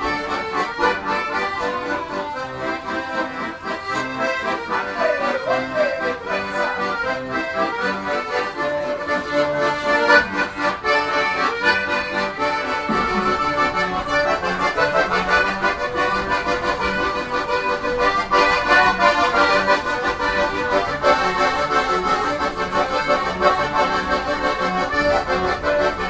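Accordion playing a tune over held chords, with a steady low bass beat joining about halfway through.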